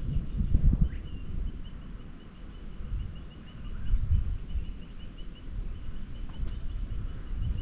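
Wind gusting across the microphone with an uneven low rumble, strongest near the start and again about four seconds in. Under it, a faint, fast string of high chirps repeats at one pitch.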